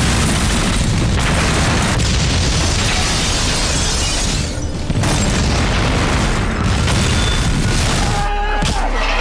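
A bomb blast going off with a sudden loud start, followed by several seconds of continuous heavy rumbling noise that dips briefly about four and a half seconds in.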